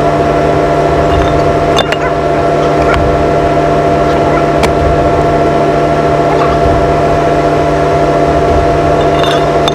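Caterpillar 305 mini excavator running at a steady engine speed, a constant hum and whine over a low rumble, with a couple of sharp knocks.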